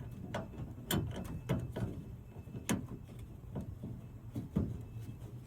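Irregular light clicks and knocks of metal parts being handled as a replacement sliding-door handle and its bracket are worked into place and a bolt is started. The sharpest knocks come about one second in and near three seconds in.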